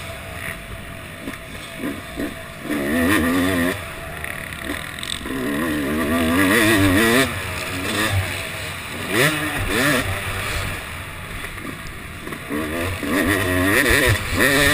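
Yamaha YZ250 two-stroke motocross bike's engine revving up and dropping back several times as the throttle is opened and closed, its pitch wavering with each burst.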